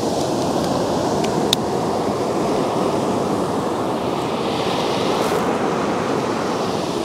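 Ocean surf breaking and washing up a sandy beach, a steady rush of noise, with a hissing wash of water over the sand about five seconds in. Two small clicks sound about a second and a half in.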